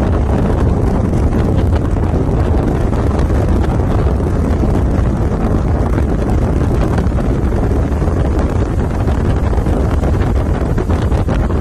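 Steady rumble of a car driving at speed, heard from inside the car: low road and wind noise, with wind buffeting the phone's microphone.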